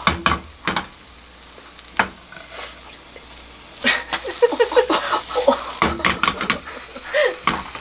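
Egg roll sizzling in a rectangular nonstick egg pan on a gas hob while the pan is tilted and the roll is turned with a silicone spatula, with scrapes and knocks of spatula and pan. The knocks come singly at first, then in a quick flurry from about four seconds in.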